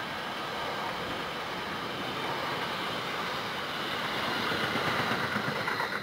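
Intermodal container freight wagons rolling past on the track: a steady rumble and rattle of wheels on rail, growing louder about four seconds in as the last wagons go by.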